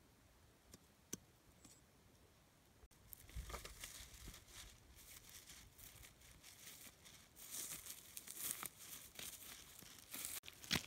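Near silence with a few faint clicks, then from about three seconds in, footsteps crunching through dry rice straw stubble, mixed with the crinkling of a plastic bag of snails.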